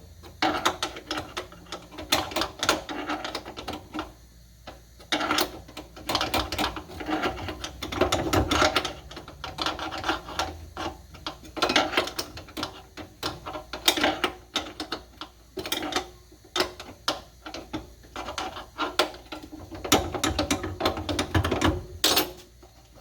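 Hand tool clicking in quick runs of sharp metallic clicks with short pauses, working a deep hood latch screw loose by hand.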